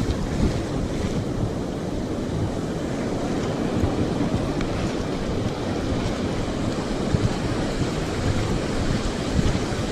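Ocean surf rushing on the beach, with wind buffeting the microphone.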